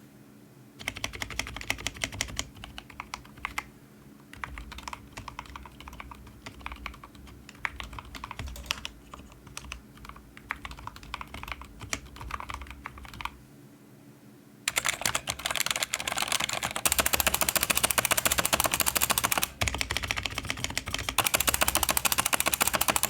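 Typing on a freshly assembled mechanical keyboard: scattered keystrokes at first, then, about two-thirds of the way in, a much louder, fast, continuous clatter of keys being hammered.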